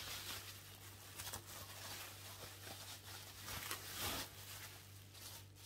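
Faint, uneven rustling and crinkling of wrapping material handled by hand as an item is unwrapped, a little louder about four seconds in.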